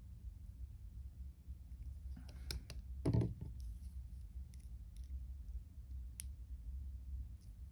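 Small scattered clicks and ticks of jewellery pliers working a wire link, with one louder, duller knock about three seconds in.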